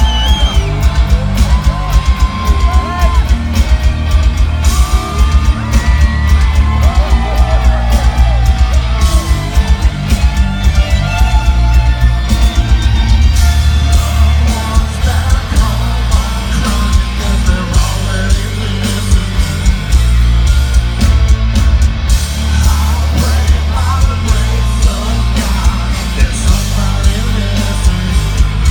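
Heavy metal band playing live at full volume, with a singer over distorted guitars, drums and heavy bass.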